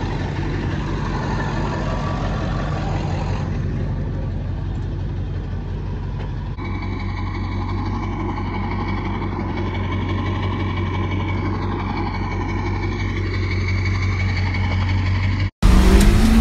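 Ford Super Duty pickup's diesel engine running steadily, its note changing about six and a half seconds in as the truck moves off. Near the end the sound cuts off abruptly and a louder sound begins.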